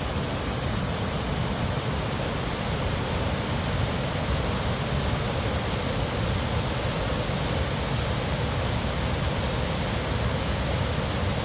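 Waterfall cascades, water rushing steadily over rock.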